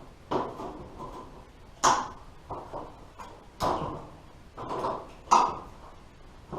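Steel sheet-metal patch being folded over by hand into a 90-degree flange, with about five irregular metal strikes that ring briefly. The strongest come about two seconds in and near the end.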